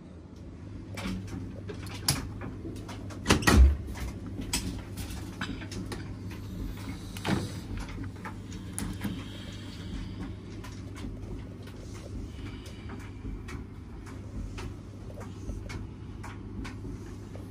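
Washing machine just after its motor stops: a steady low hum with scattered clicks and knocks, the loudest a double knock about three and a half seconds in.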